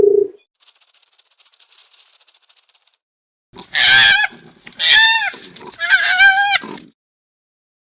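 Goose honking: three loud, nasal calls in a row, each falling in pitch at its end. Before them comes a dry, high rattling hiss lasting about two seconds.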